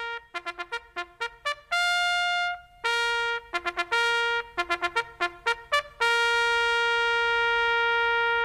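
A trumpet fanfare heralding a royal arrival: bursts of quick repeated notes broken by a few held ones, ending on one long held note from about six seconds in.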